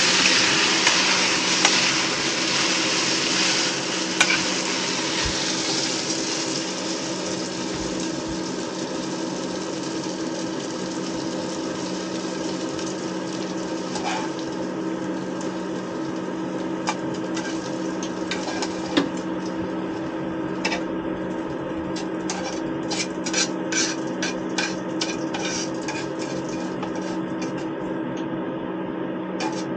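Noodles sizzling in a frying pan on a gas hob, the sizzle fading over the first several seconds. Later come many short clinks and taps of a utensil against the pan and plate as the food is served, over a steady low hum.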